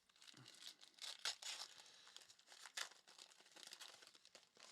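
Faint tearing and crinkling of a trading-card pack wrapper being opened and handled, in irregular rustling bursts.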